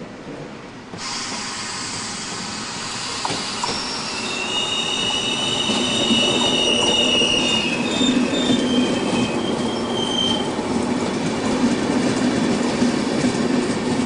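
Double-deck Vivalto regional train rolling slowly past along the platform, its rumble growing louder. From about four seconds in, its running gear squeals in several high, steady tones, which die away after about ten seconds.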